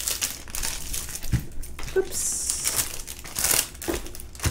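Clear plastic sleeve of a diamond painting canvas crinkling irregularly as hands press and bend the canvas flat to straighten out a bend in it.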